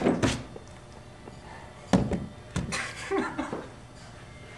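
A few sharp knocks and clatters of tools being handled on a hollow plastic kayak hull: two right at the start, one about two seconds in, and a short cluster around three seconds in, with quiet in between.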